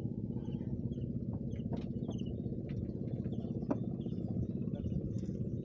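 A small engine running steadily with a fast, even pulse, and faint high chirps above it.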